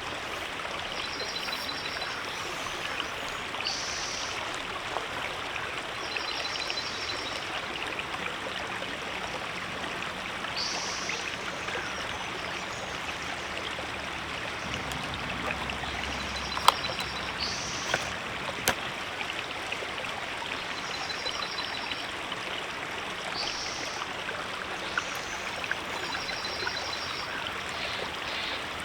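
River water flowing steadily over rocks. Above it a short, high trill repeats every few seconds, and there are a few sharp clicks near the middle.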